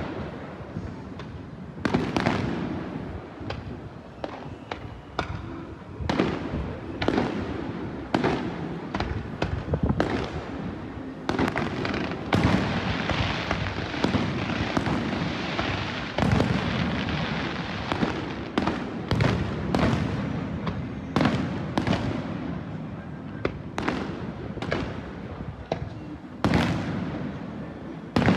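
Aerial fireworks bursting over a beach, heard from a high-rise balcony: a string of sharp bangs every second or two, with a dense run of crackling about halfway through.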